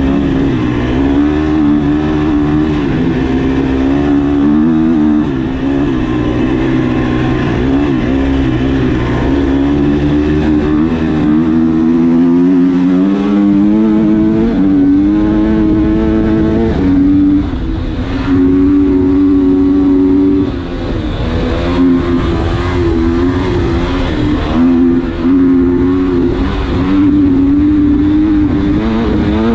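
Husqvarna motocross motorcycle engine at racing speed, heard close up from a camera on the bike itself, its pitch climbing and falling again and again as the rider works the throttle and gears. The engine note dips briefly twice, about 17 and 20 seconds in, before picking up again.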